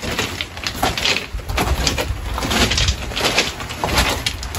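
Footsteps crunching on beach pebbles, a step about every half second, with wind rumbling on the microphone.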